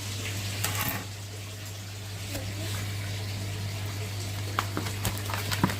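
Water running steadily over a constant low hum, with a few faint clicks near the end.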